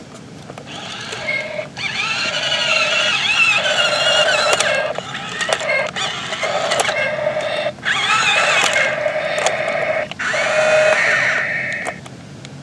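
Toy State CAT remote-control toy excavator's small electric gear motors whining as its drive levers are pushed, the pitch wavering as they run and stopping and restarting several times.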